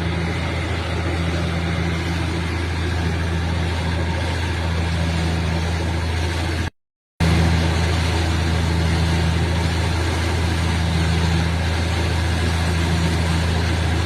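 Borewell drilling rig's diesel engine running steadily with a deep, even hum. It drops out for about half a second around seven seconds in, then carries on slightly louder.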